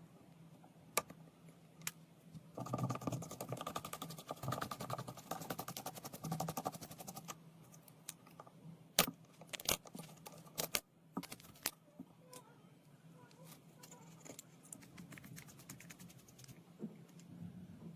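Small metal tools and parts clicking and clinking during fine disassembly of a camera, with a few seconds of dense, fast rattling clicks early on and scattered single clicks after. A faint steady hum runs underneath.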